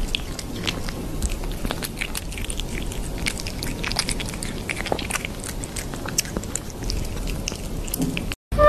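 Kitten chewing on its own paw: a dense run of small, irregular mouth clicks that stops abruptly near the end.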